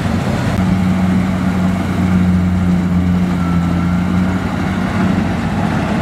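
Kubota DC-70 combine harvester's diesel engine running steadily while it harvests rice: a loud, even low drone, with a stronger steady hum over most of the stretch that fades back about five seconds in.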